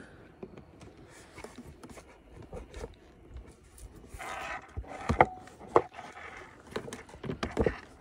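A metal tool scraping and clicking against plastic dash trim as push-pin fasteners are pried out, with several sharp clicks in the second half.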